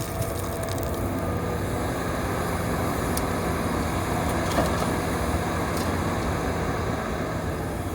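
Hitachi 350 excavator's diesel engine and hydraulics running steadily under load while digging gravel, with a few sharp knocks, the loudest about halfway through.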